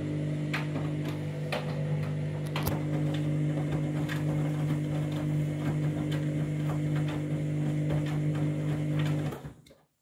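Front-loading washing machine turning its drum through the wash water during the main wash: a steady motor hum with light knocks and splashes about once a second as the wet clothes tumble. The sound cuts off near the end.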